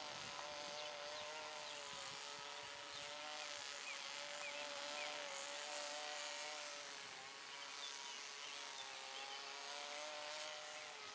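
Tiny 0.17 cc combustion engine of a small radio-controlled model plane droning in flight, its pitch wavering gently up and down as the plane flies around.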